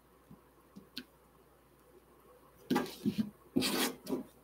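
A kitchen knife working a papaya on a cutting board: a few faint ticks, then from about three seconds in a couple of short scraping, rubbing sounds.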